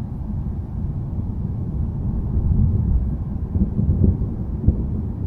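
Deep, low rumble of distant thunder, swelling about two seconds in and then easing, with a few short crackles near the end.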